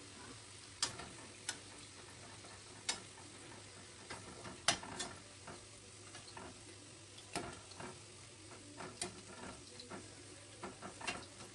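Boondi frying in hot oil in a steel pan, a low steady sizzle, while a perforated steel skimmer stirs them and clicks against the pan at irregular moments, about eight times; the loudest click comes a little before halfway.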